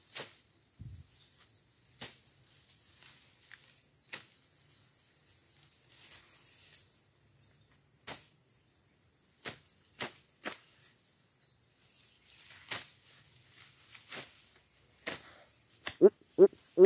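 Steady high-pitched chirring of insects in the undergrowth, with a sharp click every couple of seconds. Near the end a frog starts croaking in a rapid series of calls, about two a second.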